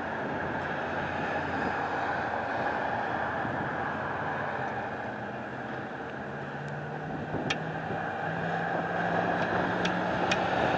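Steady outdoor vehicle noise, with a low steady engine hum coming in about six seconds in and a few faint clicks.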